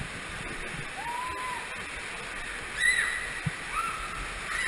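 Water rushing and sloshing as an inflatable raft slides through an enclosed tube water slide, with three short high-pitched cries about a second apart.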